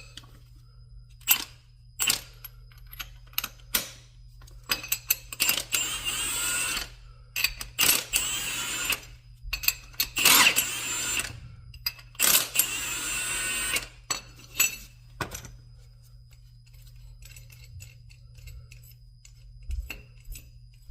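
Lug nuts being taken off wheel spacers: metal clinks and taps, with four stretches of rasping metal about a second or two each in the first half, then only scattered light clicks.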